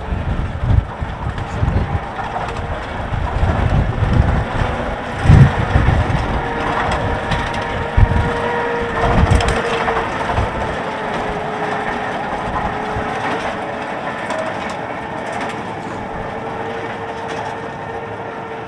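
Snowdon Mountain Railway Hunslet diesel rack locomotive passing close with its carriage: the engine runs with a steady whine, while irregular clanks and knocks come from the rack gear and wheels. It is loudest in the first half, then slowly fades as the train moves away.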